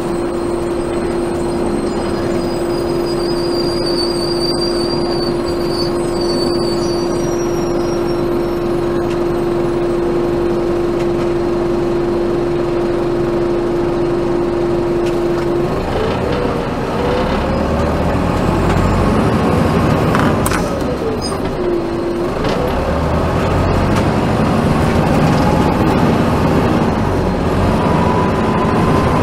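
A 1996 NovaBUS RTS transit bus heard from on board, its Detroit Diesel Series 50 engine and Allison automatic transmission running. A steady tone holds for about fifteen seconds, then the engine pitch climbs, falls away and climbs again as the bus changes speed.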